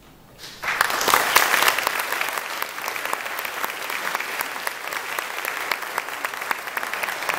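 Audience applauding: the clapping breaks out suddenly about half a second in and carries on, dense and steady.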